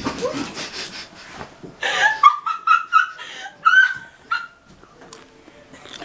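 High-pitched laughter from young people, breaking into a run of short squeals about two seconds in.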